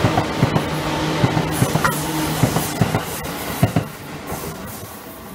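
Seibu 10000 series limited-express train passing close by, its wheels clicking over the rail joints in a steady rumble with a low hum. The sound fades about four seconds in as the last car goes by.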